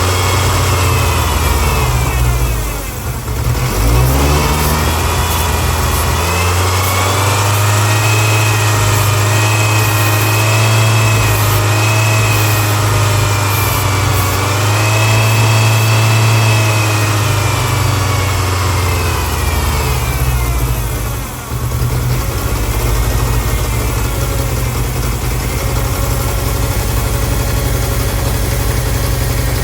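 1999 Ford Ranger's 2.5-litre four-cylinder engine, which has a large vacuum leak, running: revved up about four seconds in and held at raised, slightly wavering rpm for around a dozen seconds, then dropping back to a steady idle for the last third.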